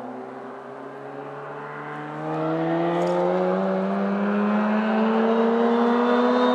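1989 Mazda RX-7's twin-rotor rotary engine, straight-piped with 3-inch pipe from the manifold back, accelerating with its exhaust note climbing steadily in pitch. It gets louder about two seconds in.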